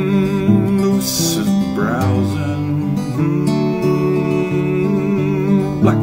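Country-folk song: strummed acoustic guitar with a steady chord accompaniment.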